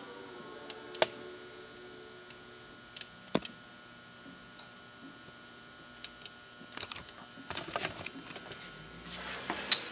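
Quiet room with a faint steady hum, broken by scattered light clicks and taps: single ones about a second and three seconds in, then a cluster of small clatters in the last few seconds.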